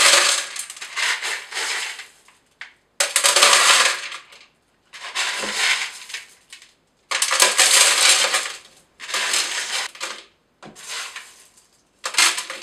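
Freshly rinsed pea gravel poured from a plastic bowl into an empty clear plastic tank, rattling and clattering onto the bottom in about six pours of a second or two each with short pauses between.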